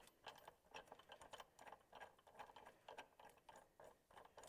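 Faint, irregular clinking of steel chain links being handled as the chain is hooked up to a track bracket.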